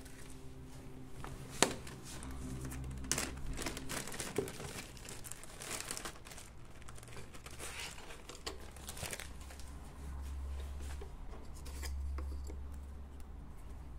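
Clear plastic packaging bag crinkling and rustling as it is handled and opened to take out a cut-out decoration, with a single sharp click about a second and a half in.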